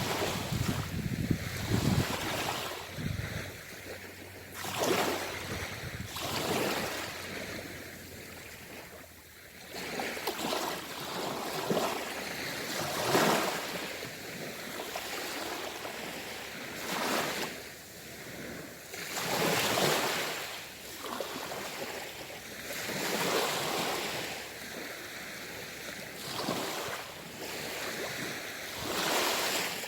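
Ocean waves breaking and washing up on the shore, one surge every two to four seconds.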